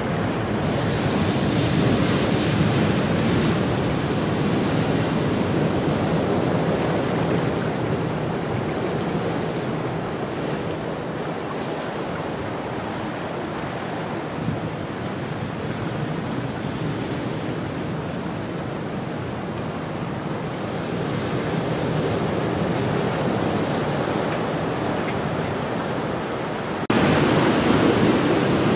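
Heavy post-storm ocean surf breaking and washing among shoreline rocks: a continuous rushing wash that swells and eases, turning suddenly louder near the end.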